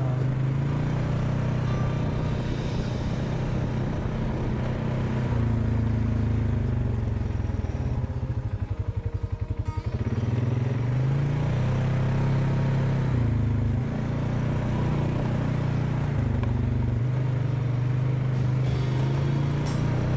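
ATV engine running under way, its pitch rising and falling with the throttle. About two-thirds of the way in it drops to a slow, pulsing low speed, then picks up again.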